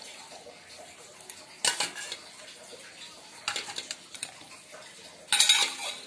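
Stainless steel bowls and dishes clinking and clattering against each other as they are handled and set down: a sharp clink a little under two seconds in, a rattling run of clinks around the middle, and the loudest clatter near the end.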